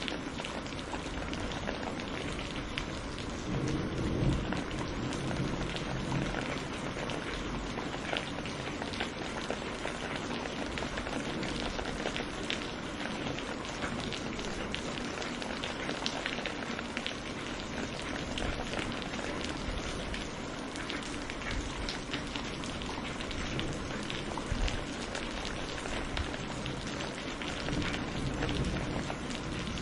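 Steady rain falling, with many fine drop ticks, and a low rumble of distant thunder about four seconds in.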